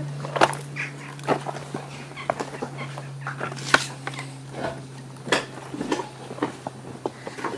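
Footsteps crunching over loose broken brick rubble, with irregular clinks and knocks of bricks shifting underfoot, over a steady low hum.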